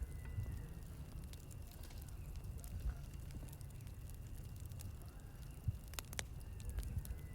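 Campfire crackling: sparse sharp pops and ticks over a steady low rumble, with a faint steady high tone.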